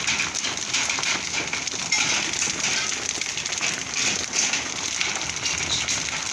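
Heavy rain and hail pelting the ground: a dense, steady hiss full of small rapid ticks.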